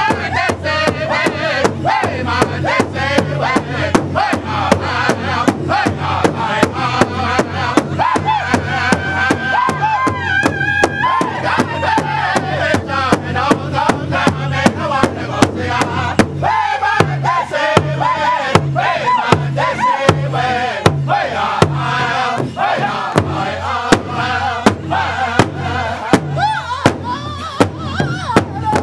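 Powwow big drum: a large hide-covered drum struck in unison by several men with padded drumsticks in a steady, even beat, while the group sings together in a high-pitched powwow chant.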